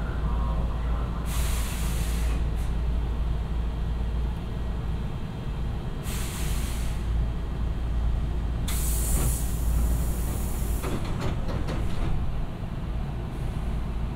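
Hankyu 7000-series electric train standing with a steady low hum, with three separate hisses of released compressed air from its pneumatic equipment, the last one longest. A short run of clicks comes about eleven seconds in.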